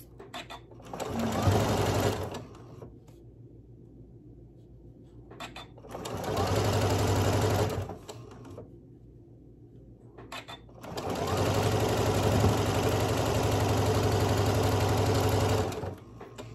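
Janome M7 sewing machine stitching fabric in three runs: a short one about a second in, another about six seconds in, and a long steady run of about five seconds near the end. Short pauses with a few light clicks come between the runs.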